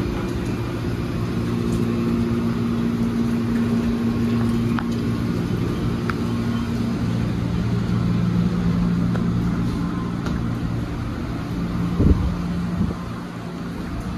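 JR 205 series electric train humming steadily, its pitch stepping lower about halfway through, with a single thump about twelve seconds in.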